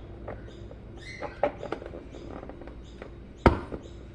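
Light taps and clicks of biscuits and a snack container being handled on a kitchen counter, with one sharp knock about three and a half seconds in.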